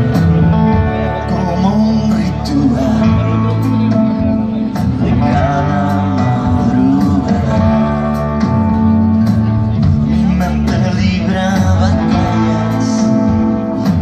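Live rock band playing, with electric guitars over drums and keyboard, heard from the audience.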